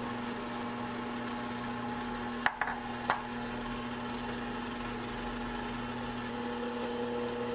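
Sunbeam Mixmaster Heritage Series stand mixer running steadily, its beaters mixing flour into cookie dough in a stainless steel bowl. About two and a half seconds in come three sharp metallic clinks close together.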